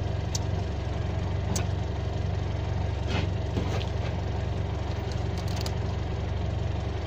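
A steady low engine hum, like an engine idling nearby, with a few faint clicks and taps.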